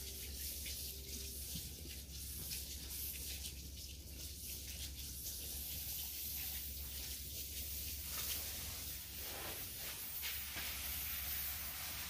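Water spraying from a garden hose nozzle onto soil-filled seedling trays: a steady hiss of spray, over a steady low hum.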